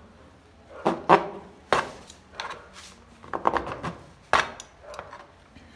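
A knife blade cutting and prying through the hard plastic rear mudguard of a motorcycle: a string of irregular sharp cracks and scraping strokes as the blade catches and breaks through the stiff plastic.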